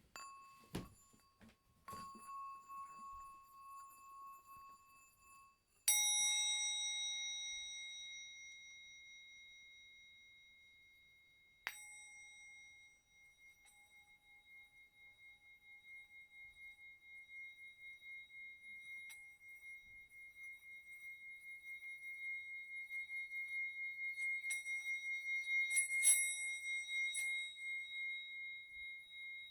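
Metal singing bowls or bell-gongs ringing. A higher bowl is struck a few times, then a larger bowl is struck with a bright, long-decaying ring and struck again about halfway through. From then on a pulsing ring swells steadily louder, as when the bowl's rim is rubbed, with a light strike near the end.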